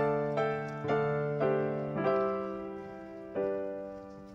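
Background piano music: a slow line of single notes, each struck and left ringing as it fades, with the last new note about three and a half seconds in.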